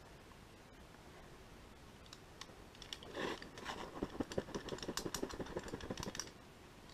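Clicking and scraping close to the microphone from a climber's gear and hands on the rock. A few scattered clicks start about two seconds in, then a dense run of rapid clicks and scuffs follows from about four seconds and stops suddenly shortly before the end.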